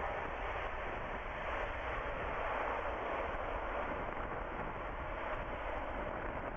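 Jet noise from an Airbus A380-861's four Engine Alliance GP7200 turbofans as the airliner moves along the runway: a steady rushing sound that eases slightly toward the end.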